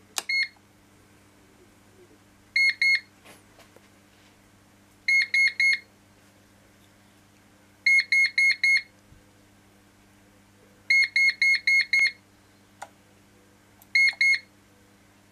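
Daystate Air Wolf MCT air rifle's electronic beeper: groups of short, high beeps every two to three seconds, the groups growing from two to about six beeps, with a short group again near the end. This is the rifle's program mode counting up through its setting stages, one beep per stage.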